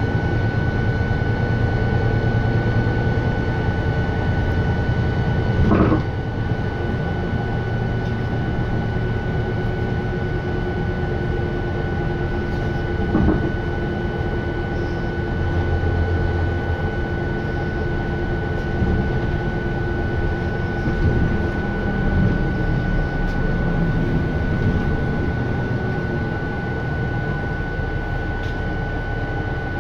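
MAN NL353-15 Lion's City city bus underway, heard inside the passenger cabin: its MAN D2066LUH straight-six diesel and Voith automatic gearbox running with a steady drone and a steady high whine. Two short knocks come through the cabin, about six seconds in and again about seven seconds later.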